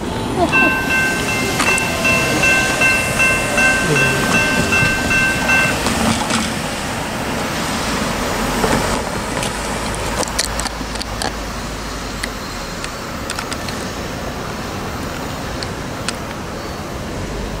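Distant diesel locomotive horn sounding one long steady chord of several notes for about five seconds. A road vehicle then rumbles past over the grade crossing as the train approaches.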